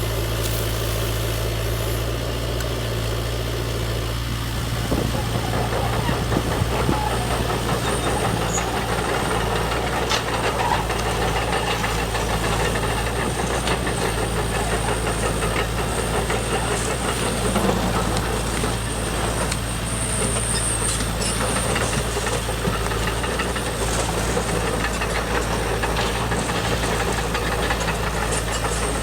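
A steady, engine-like machine drone with a constant low hum, and scattered clicks and knocks over it.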